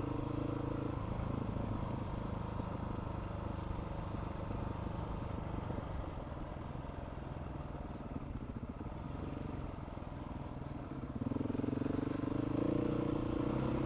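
Adventure motorcycle engine running under way on a rough dirt track, with the engine note growing louder about eleven seconds in.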